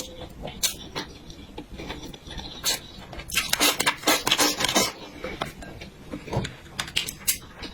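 Close-miked eating sounds: wet chewing and mouth noises mixed with light clicks of cutlery against a dish, with a denser, louder spell of eating noise in the middle.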